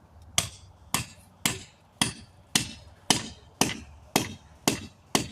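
Hammer blows on a bent steel tire spoon (tire iron), straightening it: about ten sharp, ringing metal strikes, evenly paced at roughly two a second.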